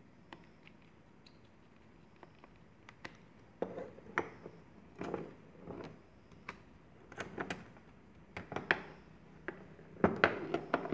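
Small hand tools and plastic phone parts being handled on a work mat: scattered light clicks and taps, sparse at first, becoming louder and more frequent about a third of the way in, with a close cluster of knocks near the end.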